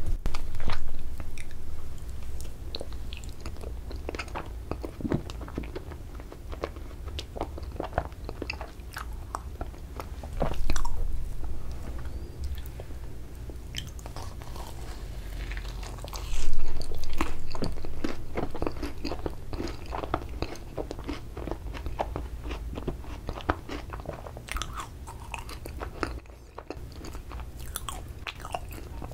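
Close-miked eating of ice cream and an ice cream macaron: bites, crunches and chewing with many small wet mouth clicks. There are louder bursts of biting near the start and about 10 and 16 seconds in.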